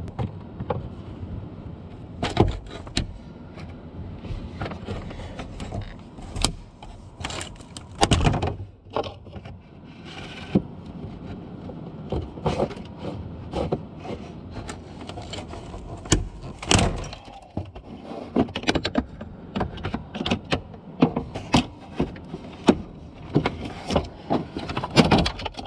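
Socket wrench and hand tools working a fastener under a pickup's dashboard: irregular clicks and knocks of metal on metal and plastic, coming faster near the end.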